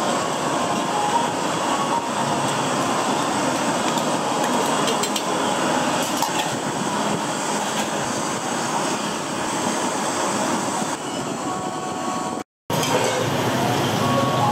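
Steady noisy background of a busy street food stall, with faint steady tones in it. It cuts out for a moment near the end.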